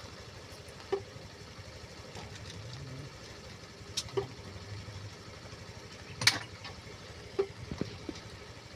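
Scattered sharp clicks and knocks of tools and parts being handled during a car repair, the loudest about six seconds in, over a faint low hum.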